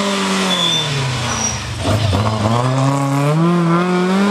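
Rally car engine, a Fiat 124 Spider, running hard: the revs fall as it slows into a bend, then about two seconds in they climb steadily as it accelerates out of the corner.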